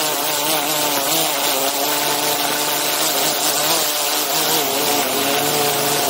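DJI Inspire 2 quadcopter's motors and propellers running steadily in flight, heard close up from the camera it carries. The sound is a hum of several tones that waver slightly in pitch over a hiss.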